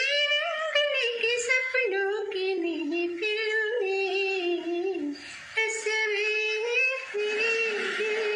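A woman singing solo and unaccompanied, holding long notes and sliding between pitches, with a breath between phrases about five seconds in.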